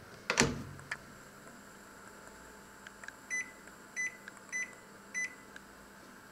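A thump about half a second in, then four short, same-pitched beeps from a microwave oven's control panel as its buttons and dial are pressed to set the cooking time.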